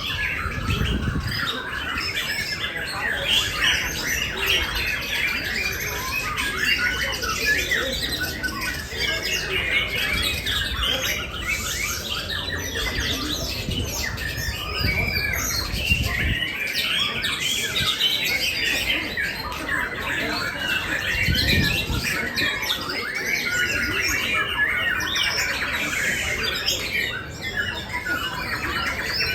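Many caged songbirds singing at once: a dense, unbroken chorus of chirps, trills and harsh squawks, with no pauses.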